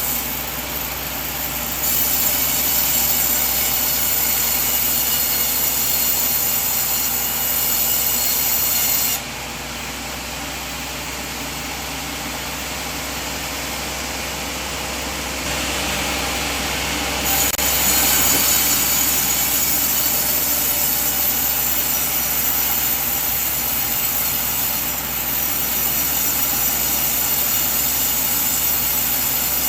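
Sawmill machinery running steadily while sawing coconut logs, the noise shifting abruptly in character about a third of the way in and again past halfway.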